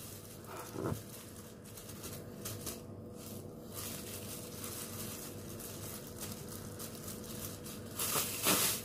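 Thin disposable plastic food-prep gloves crinkling and rustling as they are peeled off the hands, with a louder rustle near the end.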